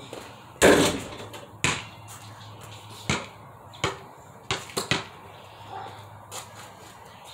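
Basketball bouncing and striking hard, about seven sharp thumps: the first and loudest about half a second in, then single hits spaced about a second apart, and a quick run of three near the middle.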